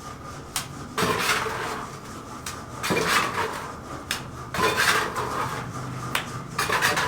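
Repeated strokes about every two seconds, each a sharp click followed by a louder scraping sound that fades out, like hand work with a tool on a hard material.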